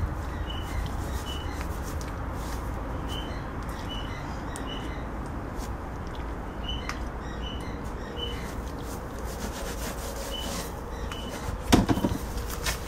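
A rag rubbing and wiping over a rubber car tyre's tread around a silicone-sealed nail puncture. There is a short high chirp repeating throughout, and a single loud knock about a second before the end.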